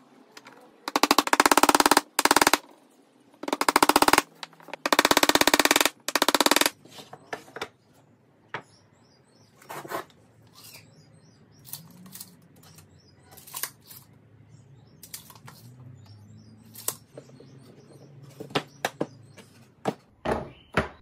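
Cordless impact driver driving screws into a pine drawer frame in five short rattling bursts over the first several seconds. Afterwards come scattered knocks and clicks of wood being handled and set down, with a louder clatter near the end.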